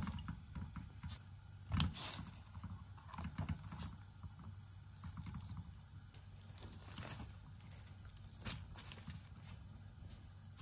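Kitchen utensils and dishes being handled: scattered light knocks and clicks over a low steady hum.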